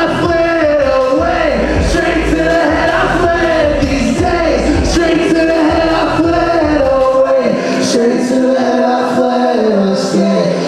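Live music with male singing over a beat. About seven seconds in, the bass and kick drop away, leaving the voices over lighter percussion.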